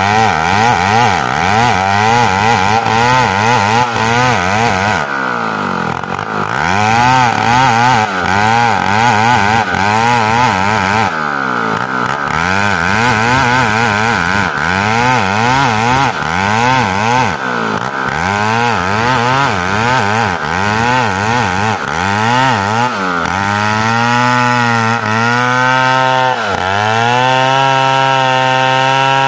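Old chainsaw ripping lengthwise through an ulin ironwood log, its engine pitch rising and falling constantly under the load of the cut. The engine drops away briefly about five and eleven seconds in.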